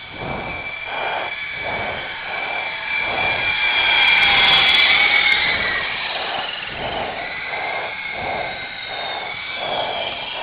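Syma S033G radio-controlled helicopter in flight, its electric motors and gears whining, pitch gliding up and down with the throttle and swelling loudest around the middle. The gears are freshly replaced.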